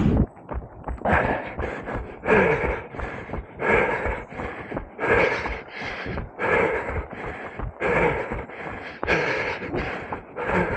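A runner's heavy breathing close to the microphone, a loud breath about every second and a half, with quick footfalls thudding between the breaths.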